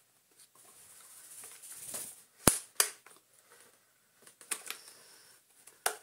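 Hard plastic clicks and clacks of Dyson DC40 vacuum cleaner parts being handled and fitted together by hand. A soft rustle builds up first, then come two sharp clacks about two and a half seconds in and a few lighter clicks near the end.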